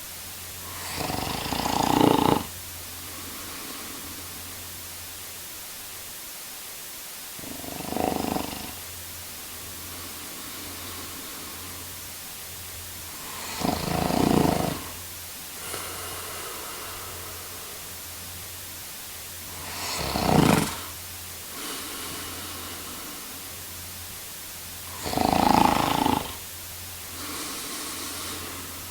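A man snoring: five loud snores about six seconds apart, each followed by a quieter breath out, over a steady background hiss.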